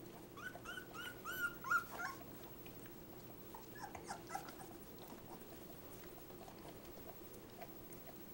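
Very young Labrador puppies squealing while crowding to nurse: a quick run of about seven short, high squeaks, each rising then falling in pitch, in the first two seconds, then a few fainter squeaks about four seconds in.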